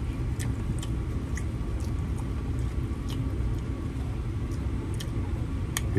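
Eating: a fork clicking and scraping in a takeout bowl, with chewing, in scattered faint ticks. A steady low hum runs under it all.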